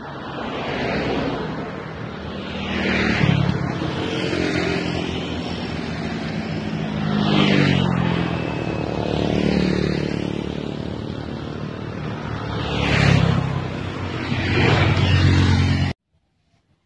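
Motorcycles and scooters passing close by one after another, each engine note rising and falling in pitch as it goes past. The sound cuts off abruptly near the end.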